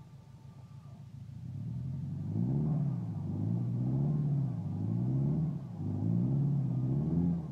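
Lifted Toyota Tacoma pickup's engine revving up and down about four times, starting about two seconds in, as its tyres spin in creek water and mud. The truck is straining to tow out a stuck F-150.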